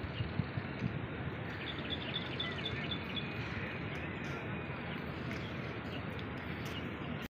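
Birds chirping, with a quick run of short high chirps about two seconds in, over a steady hiss of outdoor background noise; a few light knocks in the first second.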